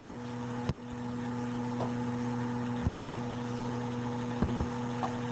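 Steady low electrical hum from the recording setup, with a few sharp clicks: one about a second in, one near three seconds, and two close together a little past four seconds.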